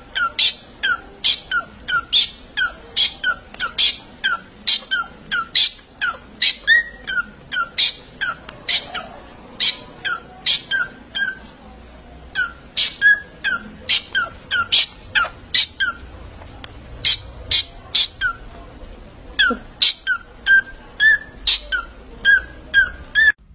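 Pet parrot calling over and over in short, sharp chirps that drop in pitch, about two a second, with a brief pause about halfway through.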